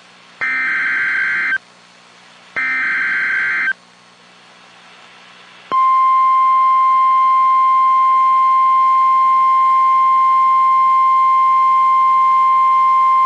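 NOAA Weather Radio EAS alert: the last two bursts of the SAME digital header, each a harsh warbling data tone about a second long, then after a short gap the steady 1050 Hz warning alarm tone comes on about six seconds in and holds. The header encodes the alert and the tone signals a warning, here a flash flood warning.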